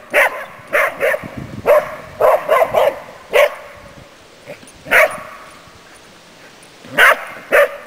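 Spanish Water Dog barking at sheep while herding: about a dozen short, sharp barks, coming quickly in the first three and a half seconds, then a single bark about five seconds in and two more near the end.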